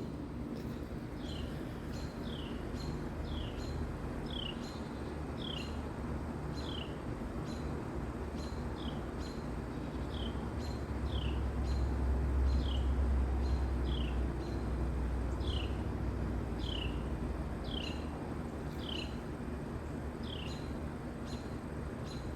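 A bird calling over and over, a short, high, downslurred note about one and a half times a second, over a low background rumble.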